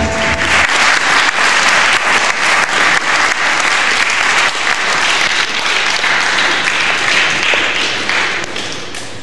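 Audience applauding as a live piece ends, the last held musical note stopping just under a second in; the clapping thins out and dies away near the end.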